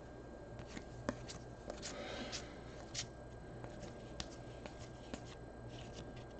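Trading cards being slid and flipped through by hand, making faint scattered clicks and rustles of card stock over a faint low hum.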